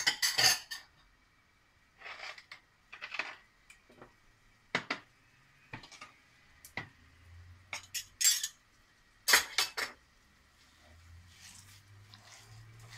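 A hand kneading a raw minced-beef mixture in a glass bowl, knocking against the glass now and then: irregular sharp clinks and knocks, with softer rustling of the mixture in between.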